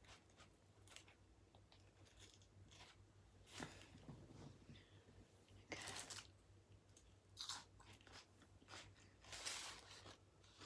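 A person biting and chewing a burger close to the microphone, with irregular crunchy bites and mouth sounds.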